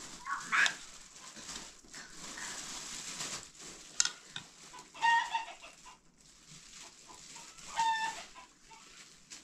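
Chickens clucking, with short pitched clucks about halfway through and again near the end. A single sharp click comes just before the first clucks.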